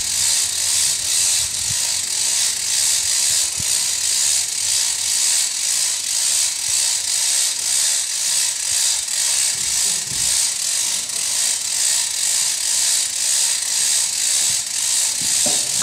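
Small engine-driven bore-piling machine running, a steady mechanical clatter that pulses evenly about two to three times a second.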